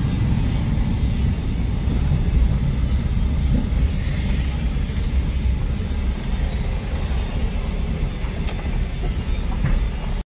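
Steady low rumble of a car driving, heard from inside the cabin: road and engine noise. It cuts off suddenly near the end.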